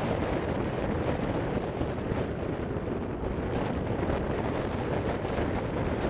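Horse-drawn inline hay baler and accumulator running steadily through a windrow, a constant low rumble mixed with wind buffeting the microphone.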